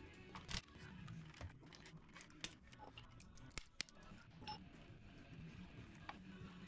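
Faint metallic clinks of hand tools being handled: a few sharp clicks scattered through, a quick pair about three and a half seconds in, and one short metallic ring soon after.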